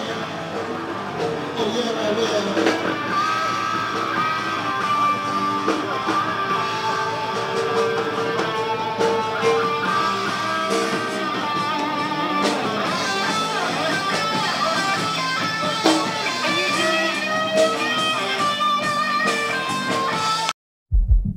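Guitar-led music playing at a steady level, cutting off abruptly just before the end.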